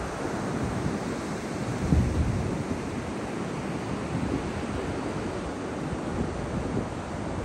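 Ocean surf breaking and washing up the beach, with wind rumbling on the microphone and a stronger gust about two seconds in.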